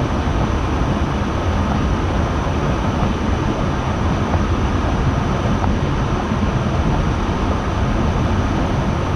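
Steady road and engine noise heard from inside a moving car's cabin, a constant low rumble with no changes.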